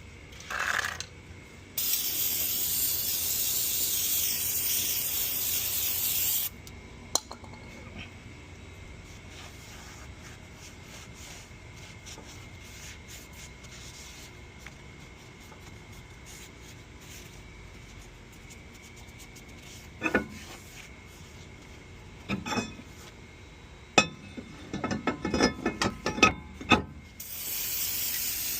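Aerosol spray can hissing in one long spray of about five seconds, starting a couple of seconds in, with another spray starting near the end. In between come a series of sharp metal clicks and scrapes.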